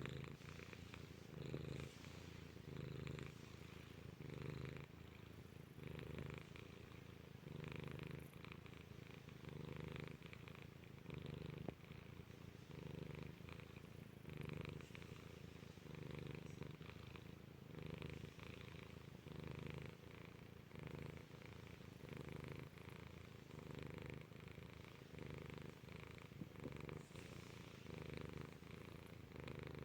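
Domestic cat purring steadily, swelling and easing with each breath about every second and a half.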